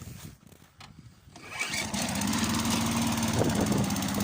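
Briggs & Stratton 3.75 hp Sprint lawn mower engine pull-started from cold. It catches about a second and a half in and then runs steadily at full throttle.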